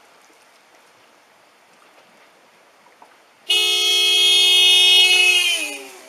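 Car horn of a flood-submerged car sounding on its own: a steady, loud tone that cuts in about three and a half seconds in, holds for a couple of seconds, then sags in pitch as it fades near the end.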